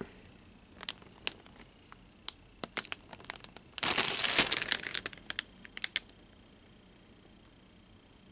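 Clear plastic bags holding plastic model-kit sprues crinkling as they are handled and turned over, with scattered crackles and a louder, dense spell of crinkling about four seconds in. The crinkling stops about six seconds in.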